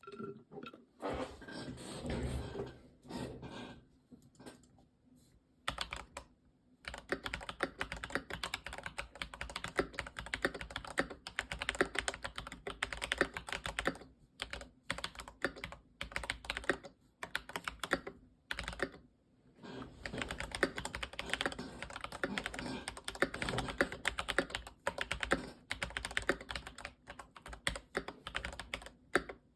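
Keychron V1 mechanical keyboard with clone Holy Panda tactile switches being typed on fast: a dense run of key clacks, with brief pauses about five seconds in and again about two-thirds of the way through.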